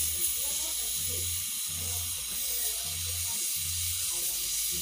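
LPG-and-oxygen torch flame hissing steadily, playing on scrap copper in a brick crucible to melt it.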